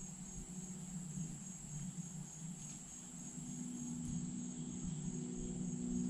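A steady insect chorus: a continuous high, finely pulsing trill. Low sustained tones fade in about halfway through and get louder.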